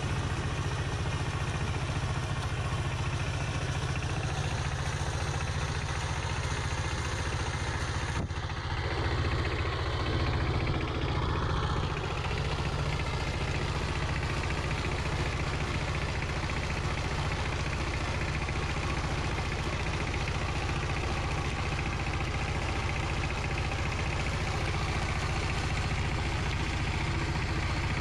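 Water-cooled single-cylinder diesel engine of a two-wheel power tiller running steadily under load while its rotary tiller churns through dry soil.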